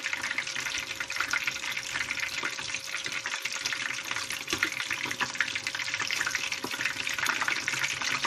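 Battered hake pieces sizzling and crackling in very hot frying oil in a pan: a steady, dense spatter of small pops.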